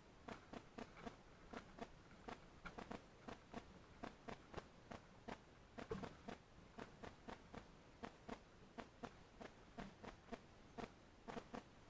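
Birds pecking seed and hopping on a feeder: faint, irregular taps, several a second.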